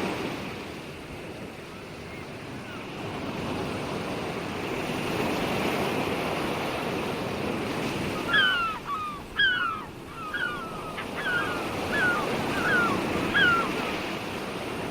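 Ocean surf washing in a steady, swelling roar. In the second half it is joined by a string of about eight short, high chirps.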